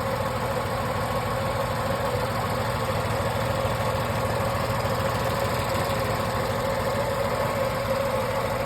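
Tata Tiago's Revotron three-cylinder petrol engine idling steadily, with a constant high hum over the running sound. This is the engine's sound after eight years and about 137,000 km.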